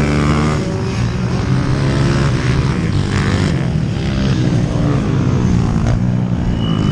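Several pit bike engines racing on a dirt track, their pitch rising and falling as riders rev, shift and ease off, overlapping one another.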